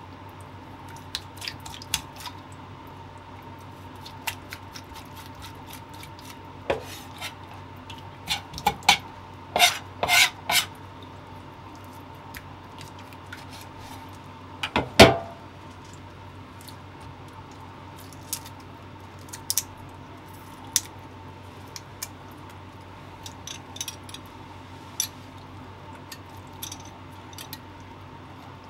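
Scattered clicks and taps of a kitchen knife and hands on a plastic cutting board while mirugai clam meat is cleaned and trimmed, with a cluster of taps in the first half and the loudest knock about halfway through. A steady faint hum sits underneath.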